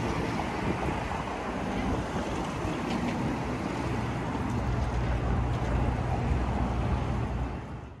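Street traffic passing on a wide city avenue: a steady rush of cars with a low rumble that swells about halfway through, and wind buffeting the microphone. It fades out at the very end.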